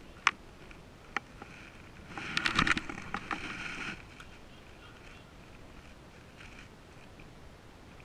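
Casting and retrieving with a baitcasting reel: a couple of sharp clicks in the first second or so, then about two seconds of rattling clicks and rushing noise from the reel and line, fading to a faint steady background.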